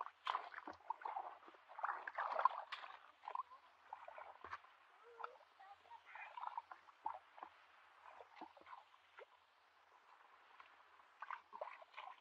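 Irregular splashing and squelching of bare feet and hands moving through shallow muddy water, loudest in the first few seconds and again near the end.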